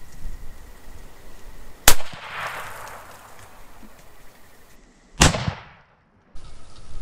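Two hunting-rifle shots about three seconds apart. The first is followed by a long rolling echo; the second dies away quickly and cuts off short.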